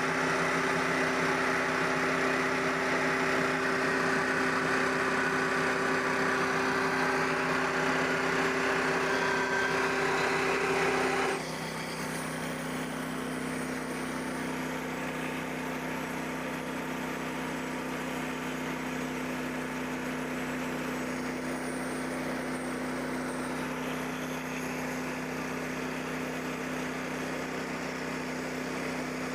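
Band sawmill's small gasoline engine running steadily. About 11 seconds in the louder, busier sound stops abruptly and the engine carries on more quietly.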